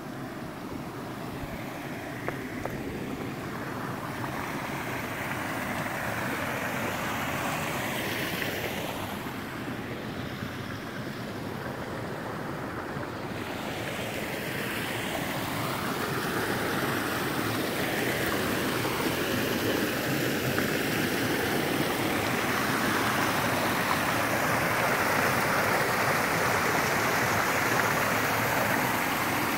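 Shallow stream running over stones: a steady rush of water that grows gradually louder.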